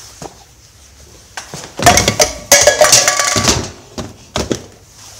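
Metal pieces clattering and clanking together for about two seconds, with a ringing metallic tone, followed by a couple of single knocks.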